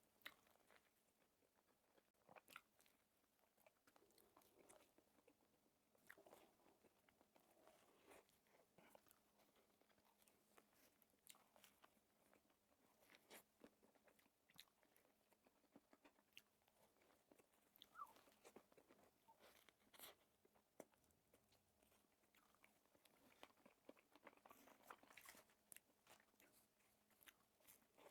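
Quiet, close-miked biting and chewing of a soft strawberry-and-cream fruit sandwich, with many small wet mouth clicks and smacks scattered throughout.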